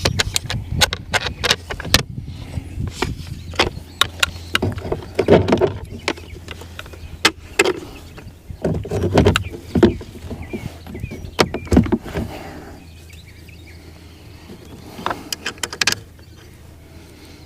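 Irregular clicks, knocks and clatter of parts and hand tools being handled, with a few heavier thumps, over a low steady hum. The clatter dies down about two thirds of the way through, leaving the hum and a few more clicks near the end.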